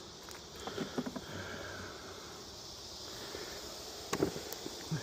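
A few sharp clicks and knocks from wooden hive parts being handled as mite-treatment strips are pulled out of an open beehive, in two clusters: about a second in and again after about four seconds. A low steady background lies under them.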